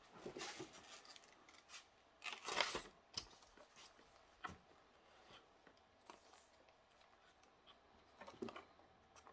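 Faint crinkling and rustling of a clear plastic sleeve and plastic packaging tray as a model train car is handled and unwrapped, in scattered short rustles, the loudest about two and a half seconds in and another near the end.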